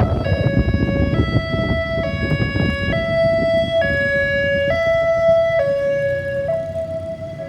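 Ambulance siren in a two-tone hi-lo pattern, stepping between two pitches roughly once a second. Vehicle engine and road rumble run underneath, heaviest in the first few seconds.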